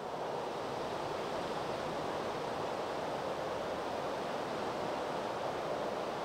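Steady outdoor rushing noise, an even hiss with no distinct events.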